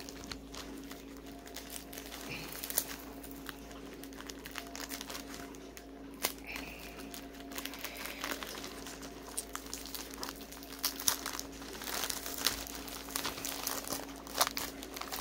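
Plastic packaging of diamond painting kits crinkling and rustling on and off as it is handled, with a steady low hum underneath.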